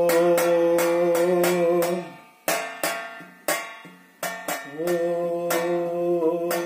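A hand-held frame drum (dafli) struck with the fingers in a loose rhythm of sharp beats. Under it, a long steady hummed note stops about two seconds in and returns near five seconds.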